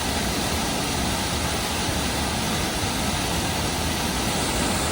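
Waterfall rushing steadily, swollen after heavy rain: an even, continuous wash of falling water.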